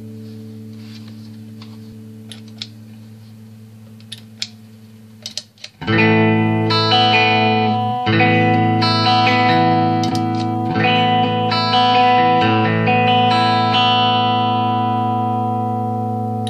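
Gibson Les Paul Special with P90 pickups played through a 1978 Fender Pro Reverb and a Visual Sound Route 66 V3 overdrive/compressor pedal, with mild overdrive. A held chord dies away with a few faint clicks. About six seconds in, loud chords are struck and left to ring, a new one every two seconds or so.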